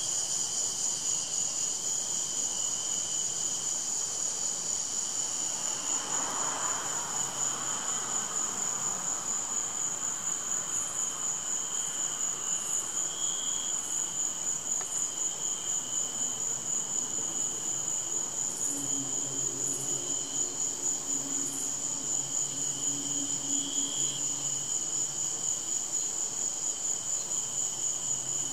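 Dusk chorus of crickets: a steady, high-pitched trill, with a second, lower insect trill that swells now and then and a few brief higher chirps. A faint low hum comes in around the middle.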